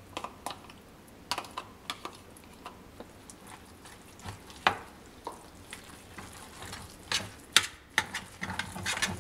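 Metal spoon scraping cooking cream out of a plastic tub and stirring it into cooked rice in a metal sauté pan: irregular soft scrapes and taps, with a few sharper clinks about halfway through and near the end.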